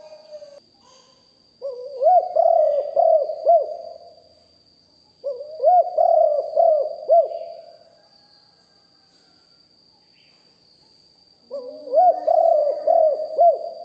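Spotted dove cooing: three bouts of its rhythmic, hooked coo phrase, each lasting two to three seconds, with pauses between them.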